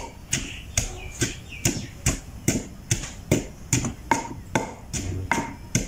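Wooden pestle pounding a moist spice paste in a heavy stone mortar: a steady beat of dull strikes, about two and a half a second.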